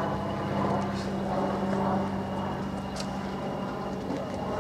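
Class 20 diesel locomotive D8059's English Electric eight-cylinder engine running as it approaches with its train, a steady low drone that eases slightly partway through. A couple of sharp ticks come about a second and three seconds in.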